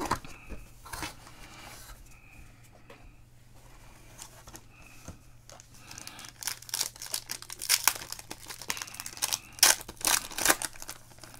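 Foil wrapper of a Topps Chrome Black baseball card pack crinkling as it is handled and then torn open, the crackling growing dense and loud in the last few seconds.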